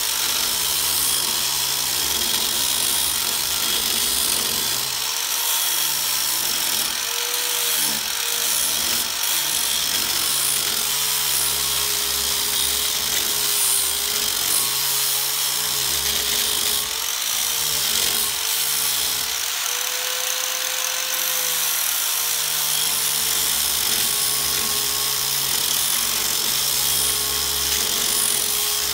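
Handheld angle grinder running continuously against sheet steel, grinding the edge down to fit; the motor's tone dips and recovers slightly a few times as it bites.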